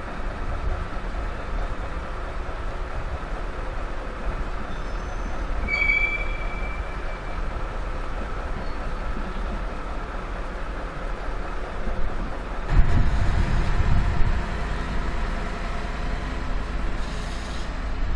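Electric locomotive-hauled double-deck passenger train rolling along the rails with a steady low rumble of wheels on track. About six seconds in there is a brief high wheel squeal. Roughly two-thirds through, a heavier low rumble rises for a second or two.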